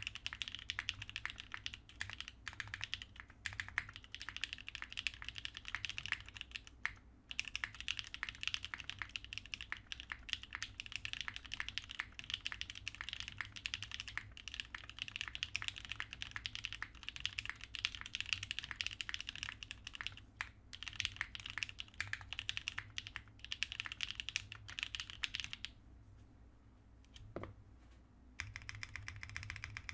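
Continuous typing on a TGR 910 mechanical keyboard with lubed Kailh Cream switches on 68 g springs, a polycarbonate plate and GMK keycaps: a dense, fast patter of keystrokes. It breaks for a few short pauses, and for about two seconds near the end, where a single keystroke is heard before the typing resumes.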